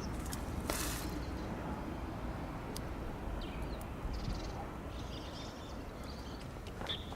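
Outdoor ambience: a steady low rumble with a few short, high chirps and scattered clicks, and no train passing.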